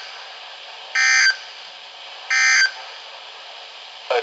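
Emergency Alert System end-of-message data bursts: short, identical buzzy blasts of digital tone repeated about every 1.4 seconds over steady broadcast hiss, marking the end of the alert. A brief blip comes near the end, then the audio cuts off suddenly.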